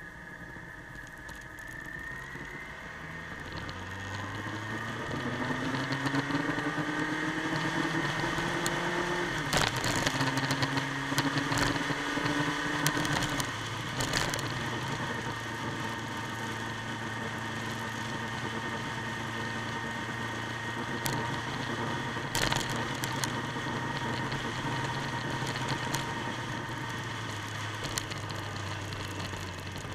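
Motorcycle engine pulling up through the gears: its pitch climbs, drops at a gear change about ten seconds in and again at about fourteen seconds, then settles into a steady cruise. Wind rush runs underneath throughout.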